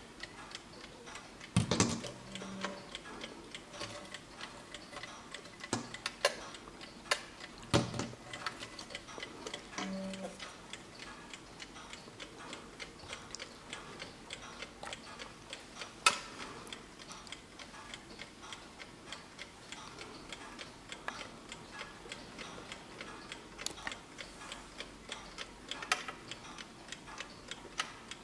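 A serviced 1905 Junghans brass alarm clock ticking steadily, with a few louder knocks and clicks as the clock is handled and turned in the hand.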